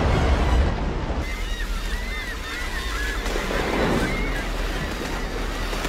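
A flock of seabirds calls over one another, many short calls packed together from about a second in, over the steady wash of waves and wind. In the first second there is a low rushing rumble of water.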